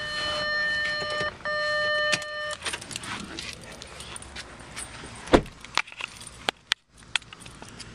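An Audi A4's steady electronic warning tone sounds inside the car, breaks once briefly and stops about two and a half seconds in. Then come clicks and keys jangling, and the car door shuts with a thump a little past five seconds in.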